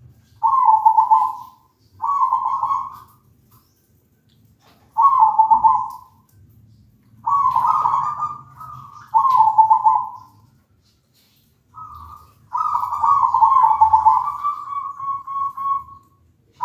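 Zebra dove (perkutut) cooing: a series of short, rolling, trilled coo phrases about every two seconds, ending in a longer drawn-out phrase that trails off.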